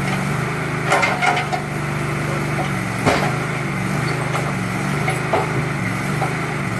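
Backhoe engine running steadily as its bucket tears into a wooden shed, with sharp cracks of breaking wood about one second and three seconds in.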